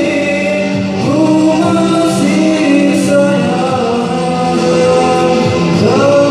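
Karaoke song: a voice singing long held and sliding notes over a full band backing track.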